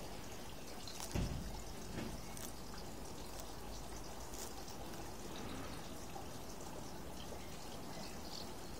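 A tortoise biting and chewing lettuce: faint, crisp, irregular crunching ticks over a steady background hiss. A low thump about a second in.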